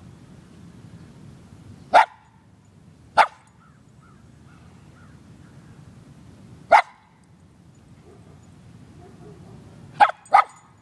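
Shetland sheepdog barking with single sharp barks spaced out: one about two seconds in, another a second later, one near the middle, then a quick pair near the end.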